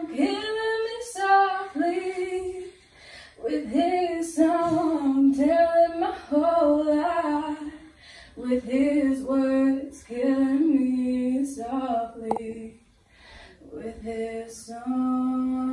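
A girl singing alone without accompaniment, in several phrases with short pauses between them, ending on a long held note.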